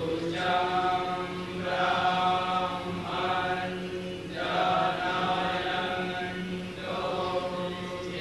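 A group of men reciting Vedic verses, a chant held on a few steady pitches in phrases a second or so long with short breaks between them.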